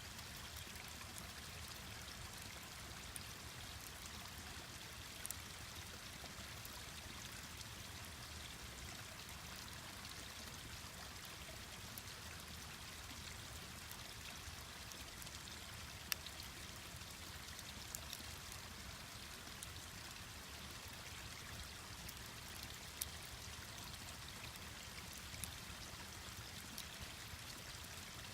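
A mountain stream running steadily, with a wood campfire crackling on top: a few sharp pops, the loudest about 16 seconds in.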